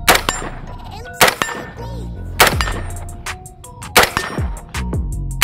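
Five rifle shots, spaced about one to one and a half seconds apart, each followed by a ringing tail, over background music.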